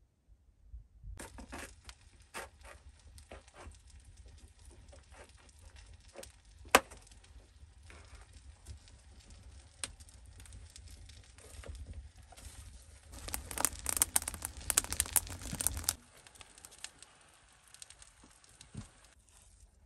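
Wood embers crackling in a clay fireplace while green peppers roast on a stick over them: irregular sharp pops, one loud snap about seven seconds in, and a denser spell of crackling and rustling about two-thirds of the way through.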